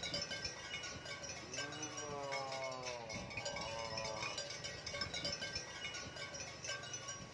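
Cattle calling twice, two drawn-out moos that rise and fall in pitch, the first about a second and a half in and the second just after it. Under them runs background music with tinkling, chime-like tones.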